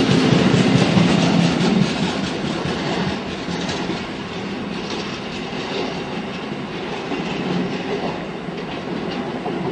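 The last bulk tank wagons of a freight train rolling past on the rails, loud for about the first two seconds, then fading steadily as the train pulls away.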